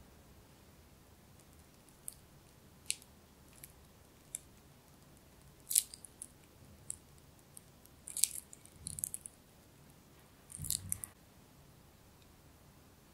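Scattered light clicks and taps of small kitchen utensils (a piping bag and wooden chopsticks) handled over a parchment-lined board, with two short, fuller handling rustles in the second half.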